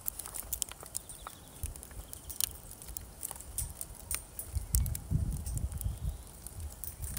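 Wind gusting against the microphone, a low rumble that swells strongest about five seconds in, with scattered sharp ticks over it.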